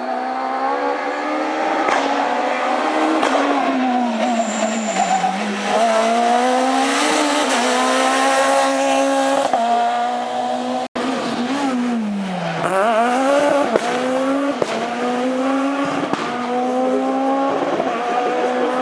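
Renault Clio S1600 rally car's 1.6-litre four-cylinder engine at full throttle, its pitch climbing and dropping repeatedly through gearshifts and lifts. About eleven seconds in the sound cuts briefly, then the revs fall steeply and climb again.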